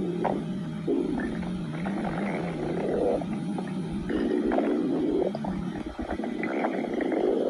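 Stomach growling: an unbroken, uneven rumble with a wavering low tone and gurgles that swell and fade every second or so.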